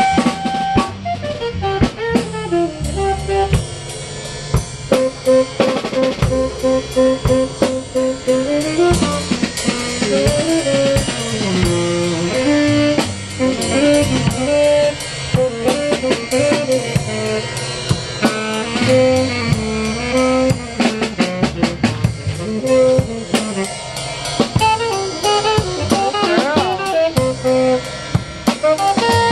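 Live street band playing: a saxophone carries the melody over a drum kit with rimshots and cymbals and an upright bass.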